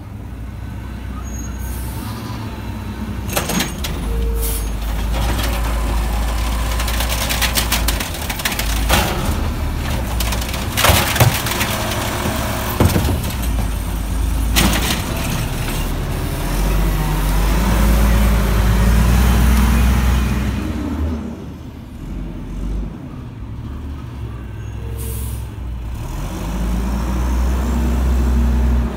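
Mack LE garbage truck with an Amrep automated side loader running on natural gas: engine running steadily, rising in pitch for a few seconds past the middle as it works, with several sharp air-brake hisses and clanks during the first half and another hiss near the end.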